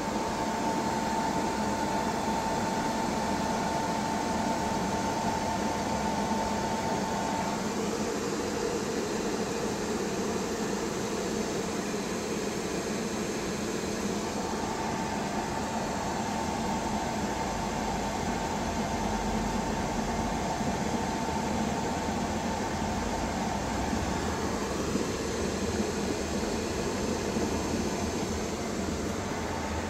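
A 3 kW electric kettle heating water close to the boil, a steady rushing noise. A steady high tone runs over it, drops out for several seconds partway through, and comes back.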